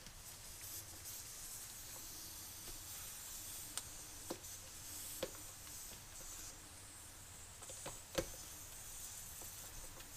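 Faint steady hiss of air escaping from a small mower tire, with a few light clicks and taps as gloved hands handle the wheel and rim. The sharpest click comes about eight seconds in.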